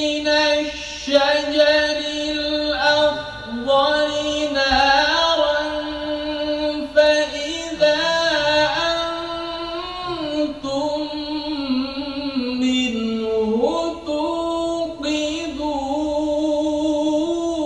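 A male qari reciting the Quran in a melodic, drawn-out tajweed style. One voice holds long ornamented notes and slides between pitches, dipping low and climbing back near the middle, with short breaks for breath between phrases.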